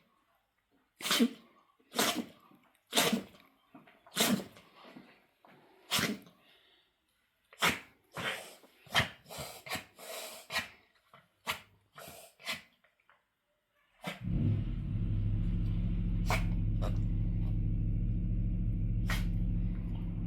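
A dog sneezing over and over, about one sneeze a second at first, then a quicker run of sneezes. About fourteen seconds in, a steady low hum starts and keeps going, with a few more sneezes over it.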